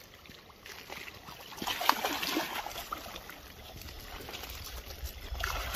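Shallow water splashing and washing over rocks, with one sharp splash about two seconds in.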